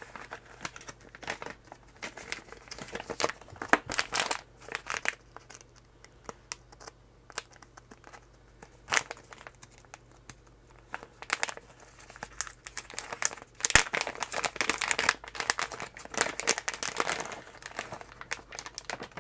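Plastic anti-static component bags crinkling and rustling in irregular bursts as hands handle and open them, busier and louder in the last few seconds.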